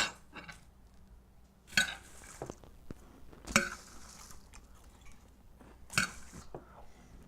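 A spoon clinking and scraping against a bowl of crispy kale chips, three short clatters roughly two seconds apart, with faint crackling between.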